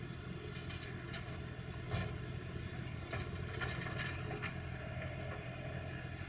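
Diesel engine of heavy site plant running steadily at a low hum, with a few sharp knocks and clanks of work, the loudest about two seconds in.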